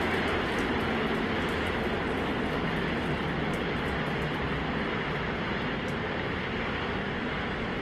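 The 33 Raptor engines of SpaceX's Super Heavy booster burning during ascent: a steady, dense rumbling noise with scattered faint crackles, slowly fading as the rocket climbs away.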